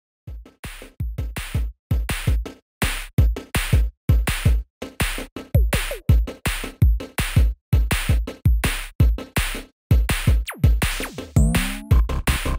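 Electronic background music: a choppy drum-machine beat of deep kicks and crisp hits, stopping and starting with short silences, with a falling sweep about ten and a half seconds in.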